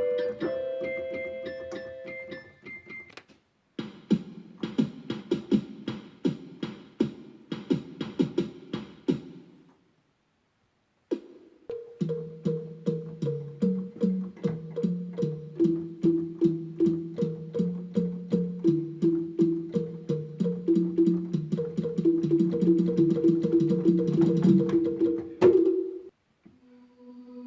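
Yamaha electronic keyboard played as sound effects: passages of rapid repeated notes, some over a lower line of notes, with short pauses between, and a sharp click about 25 seconds in.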